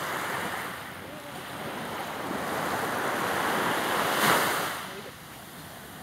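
Sea waves breaking: the surf noise swells, is loudest about four seconds in, then falls back.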